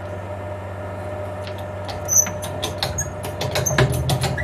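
A string of irregular sharp clicks and knocks from hands working on the milling machine's head, starting about a second and a half in and loudest twice, over a steady low hum.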